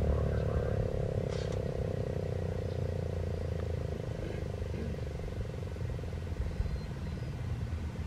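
American Signal T-128 outdoor warning siren sounding a steady tone that slowly fades away, over a low rumble.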